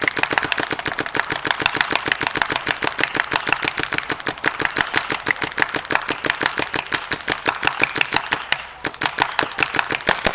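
Planet Eclipse Gmek mechanical paintball marker firing a rapid, even string of shots by slide trigger, with a brief pause near the end. The marker feeds cleanly with no breaks or chops.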